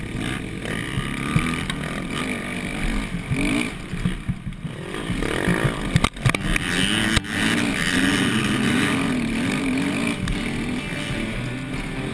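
Yamaha YZ450F 450cc four-stroke single-cylinder motocross engine, heard from the rider's helmet, revving up and down as it is throttled through turns, with a few sharp knocks about six and seven seconds in.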